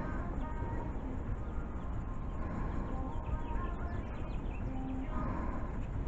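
Steady outdoor background noise, a low rumble, with faint bird chirps scattered through it.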